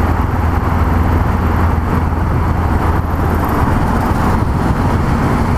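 Yamaha MT-03 660's single-cylinder engine running under way, with a steady low engine note that changes a little over halfway through, over constant road and wind noise.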